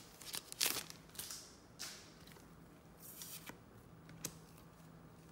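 Trading cards being handled and flipped, sliding against one another in a few short swishes and soft clicks. The loudest swish comes in the first second, with a sharp click about four seconds in.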